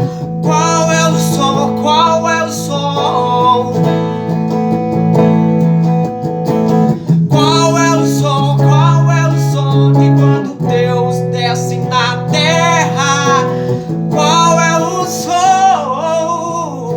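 A man sings a gospel worship hymn with a wavering vibrato, over strummed acoustic guitar and steady low sustained accompaniment.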